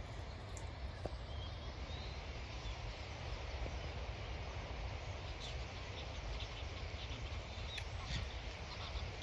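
A flock of birds calling over a steady low rumble, with the calls growing busier in the second half.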